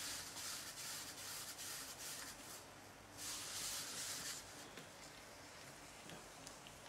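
Wet gloved hands rubbing against slurry-covered clay as it is centered on a spinning potter's wheel, a soft hiss that swells and fades in waves and grows fainter in the second half. The black clay is cold and stiff, which makes it hard to center.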